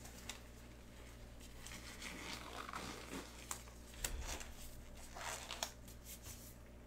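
Faint rustling and crinkling of packaging, with scattered sharp clicks and a light knock, as sealed boxes of trading cards are handled and unwrapped. A steady low hum runs underneath.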